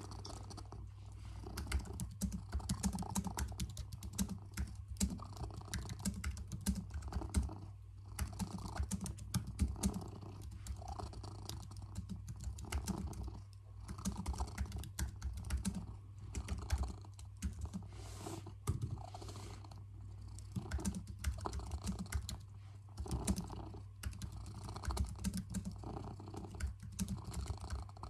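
Fingers typing on a computer keyboard, a quick irregular patter of key clicks, over a domestic cat's steady low purr that swells at regular intervals.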